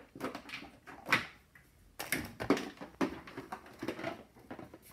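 Handling noises: toys and objects being moved about close to the microphone, with irregular knocks and rustles.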